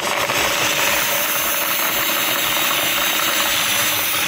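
Cordless drill driving a grain mill, steadily crushing Pilsner malt: the motor's whir mixed with the rattling grind of grain going through the mill.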